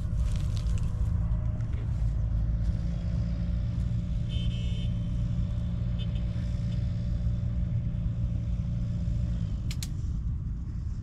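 An engine running steadily with a low rumble, which fades out near the end. A brief high chirp is heard about four and a half seconds in.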